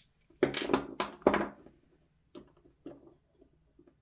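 Clatter and knocks of a Silverback MDR-X airsoft gearbox casing being opened by hand, loudest in the first second and a half, then a few light clicks of small parts.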